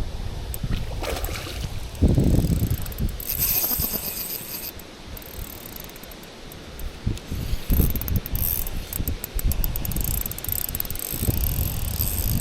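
Spinning reel being cranked to retrieve a spinner lure, its gears ticking rapidly and evenly, over gusts of wind rumbling on the microphone.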